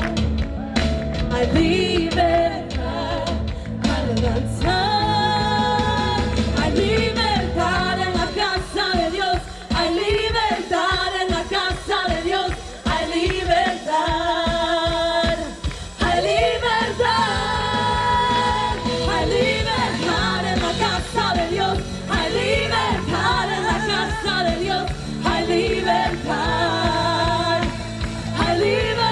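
Live gospel praise music with singing over a band with a low bass part.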